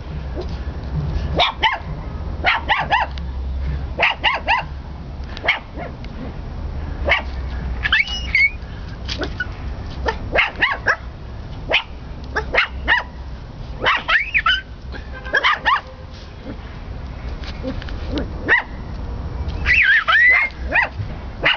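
Puppies yipping and barking in short high-pitched calls, over and over, with a steady low rumble underneath.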